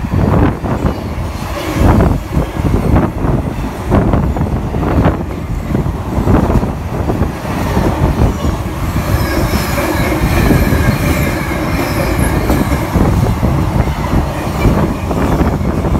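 Container freight train's flat wagons rolling past at speed, the wheels clicking over rail joints again and again. A faint high wheel squeal rides over the rumble for a few seconds about halfway through.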